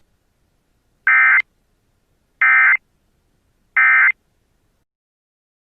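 EAS end-of-message data bursts: three short, harsh, screechy digital bursts, each under half a second, about a second and a half apart, marking the end of the emergency alert.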